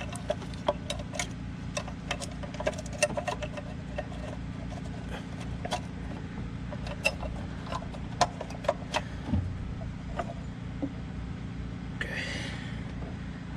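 Scattered light clicks and knocks of parts and hand tools being handled while a valve cover and its cable are put back on an engine, over a steady low hum. A short hiss near the end.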